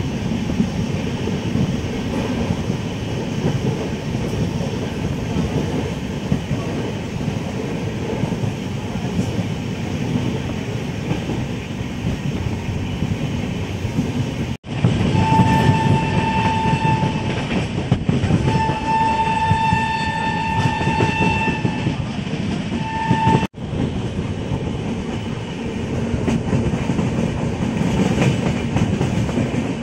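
A train running, heard from inside the coach at an open barred window, with a steady rumble of wheels and wind. About halfway through a train horn sounds three times, a short blast, a longer one of about three seconds and a brief one. The audio drops out for an instant just before and just after the horn.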